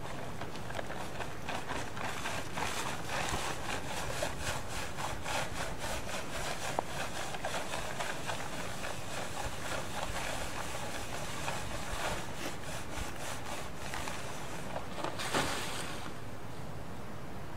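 Plastic tarp crinkling and rustling as it is rubbed and shifted over a yearling horse's back, with a louder swish about fifteen seconds in as it is pulled off.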